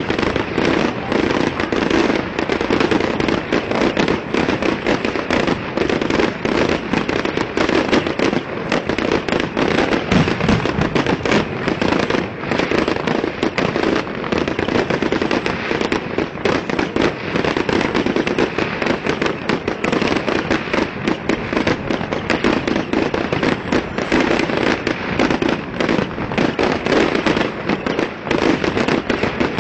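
Fireworks display in a dense, unbroken barrage: rapid bangs and crackling overlapping one another with no pause, recorded through a mobile phone's microphone.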